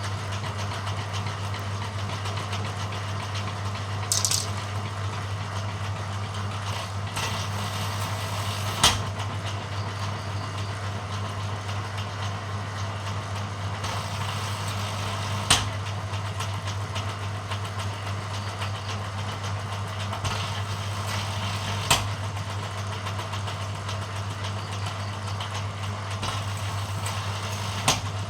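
Bamboo thinning and strip-cutting machine running with a steady low hum, broken by about five sharp knocks spread a few seconds apart as bamboo goes through it.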